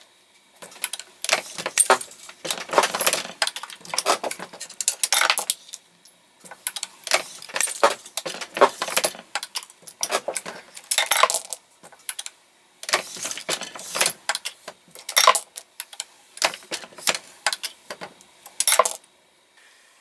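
Reloading press being cycled while loading pistol cartridges: repeated bursts of metallic clicking and rattling as the press runs and brass cases and finished rounds clink together, each burst a second or two long with short pauses between.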